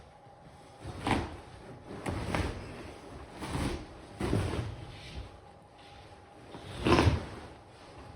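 Glued-down commercial carpet being pried and torn up from the floor: about five rough tearing, scraping pulls at irregular intervals, the loudest near the end.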